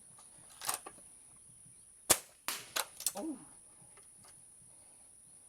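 A Crosman Nitro Piston .22 gas-piston break-barrel air rifle fires one sharp shot about two seconds in. Shorter clicks and knocks come before and after it.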